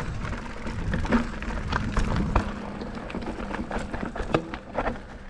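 Mountain bike clattering over a rocky, rooty trail: an irregular run of sharp knocks and rattles over a low rumble.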